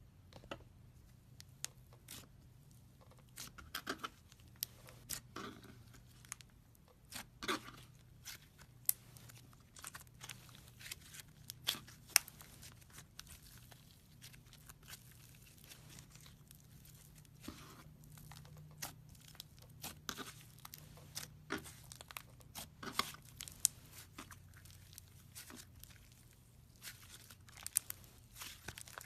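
Clay slime being handled: a string of irregular crackles and clicky pops as it is squished and stretched, over a faint steady hum.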